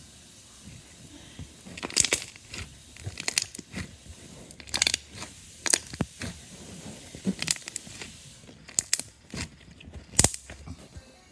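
Slime being squeezed and kneaded by hand, giving irregular sharp clicks and pops.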